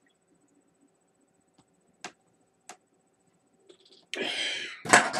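Mostly quiet with two faint clicks, then about four seconds in a loud rushing breath followed by a loud burp from a man who has just chugged a can of Four Loko.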